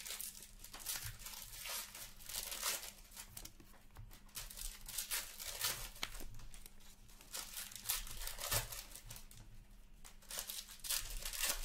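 Foil wrappers of hockey card packs crinkling and tearing as they are pulled open by hand, in irregular bursts.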